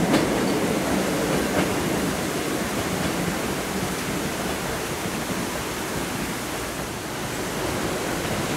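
Steady rushing noise, like running water, while the rumble of the Hakone Tozan Railway 2000-series electric car fades out in the first moment. The noise grows a little louder near the end.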